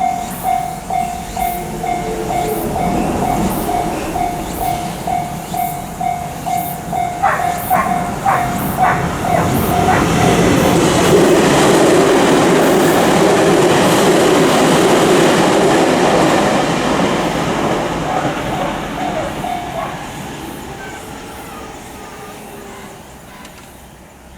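Japanese level-crossing alarm bell ringing its steady "kan-kan" about twice a second while a train passes through. The train's rumble builds with a few sharp wheel clacks, is loudest around the middle and fades away toward the end.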